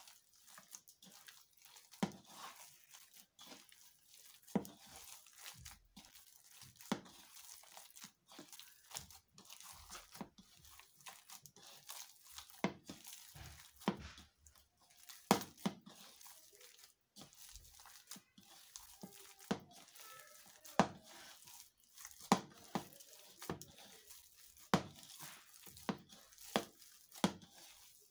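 Bare hand kneading mashed potato mixed with egg and chopped herbs in a ceramic bowl: soft wet squishing broken by irregular sharp clicks about once a second.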